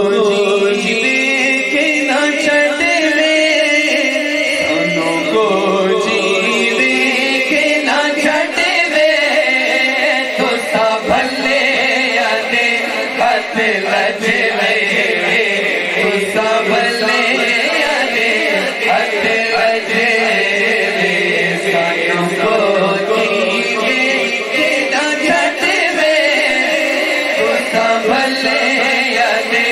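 Men's voices chanting a naat, an Urdu devotional song in praise of the Prophet, into microphones. Two singers carry the melody in long, continuous phrases without a break.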